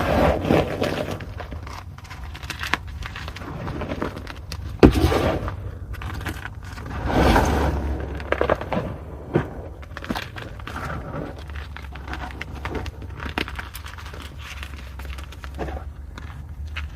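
Pieces of fine gym chalk (magnesium carbonate) crunching and crumbling as they are crushed, with irregular crackles and one sharp snap about five seconds in.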